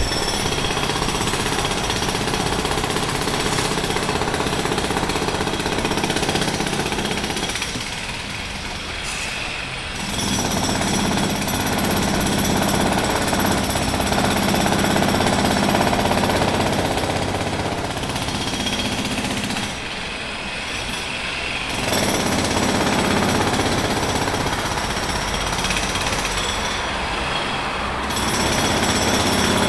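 Jackhammer hammering continuously in long runs, with a dense, fast rattle. It eases off briefly about a third of the way in and again about two-thirds in before resuming at full force.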